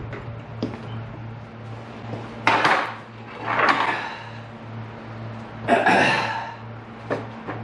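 Wooden boards of a furniture dolly clattering as they are handled and set down on the garage floor: three loud clatters, the last and longest near the end, with a few lighter knocks. A steady low hum runs underneath.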